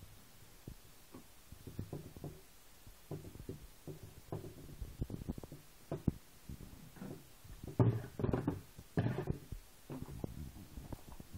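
Irregular knocks and rubbing as gloved hands work the netting and rope on a steel-barred creel frame, with a few louder knocks about eight and nine seconds in.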